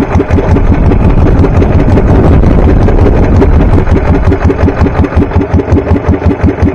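Small boat engine running with an even chugging pulse of about four or five beats a second. The beats blur into a smoother run for a few seconds after the start, then the even chug returns.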